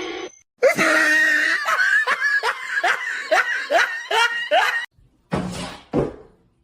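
A person laughing hard in a run of short bursts, each falling in pitch, for about four seconds. A brief rush of noise follows near the end.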